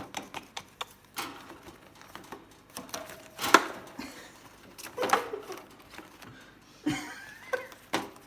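A peach-faced lovebird knocking about, rustling and nibbling cardboard toilet-roll tubes: irregular taps and scrapes, with a sharp knock about three and a half seconds in and more near five and seven seconds.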